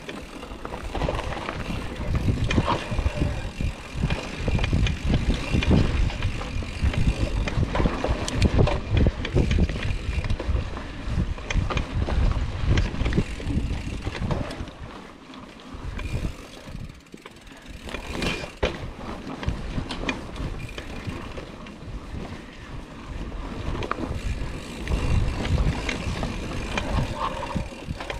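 Hardtail mountain bike ridden over a rough dirt trail: tyres rumbling and the bike rattling and knocking over bumps, with wind buffeting the action-camera microphone. It eases off for a few seconds midway, then picks up again.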